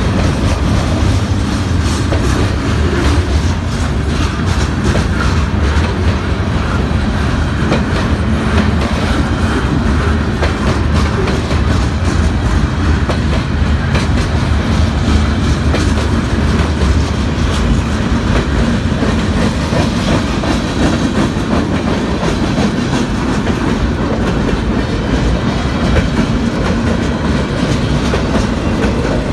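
Freight cars of a CSX manifest train rolling past at steady speed, a low rumble with the rapid clickety-clack of wheels over rail joints.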